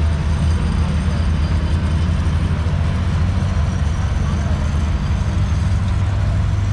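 Old tractor engine running steadily under load, driving a mounted corn picker as its elevator feeds ear corn into a gravity wagon: a constant low, deep machine drone.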